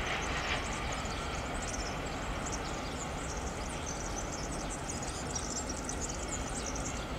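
Freight train's covered wagons rolling away over the track, a steady rumble slowly fading as the tail of the train recedes, with many short high chirps over it.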